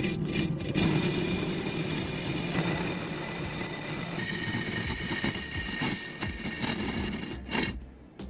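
A power tool running steadily, starting just under a second in and cutting off shortly before the end.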